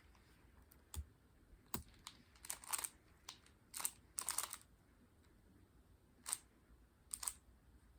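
Scattered sharp plastic clicks and short rattles from hands handling small objects, in about six brief clusters with quiet gaps between them.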